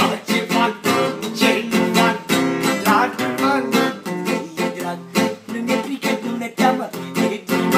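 Acoustic guitar strummed in a steady rhythm, about three strokes a second, chords ringing between the strokes.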